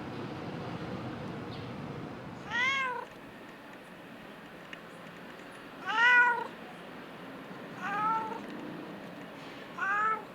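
Stray cat meowing four times, each meow rising and then falling in pitch, the second the loudest.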